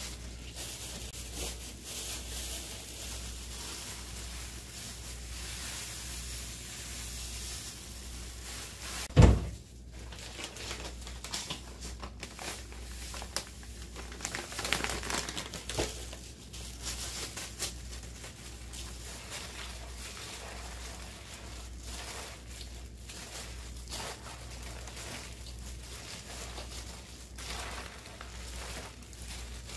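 Rustling and crinkling of cut napa cabbage, chives and plastic gloves as seasoning is poured on and the geotjeori (fresh kimchi) is tossed by hand in a stainless-steel bowl. A single loud thump comes about nine seconds in, and a low steady hum runs underneath.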